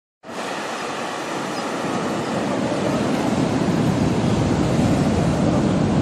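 Ocean surf breaking and washing on a beach, a steady rush that cuts in suddenly just after the start and slowly grows louder.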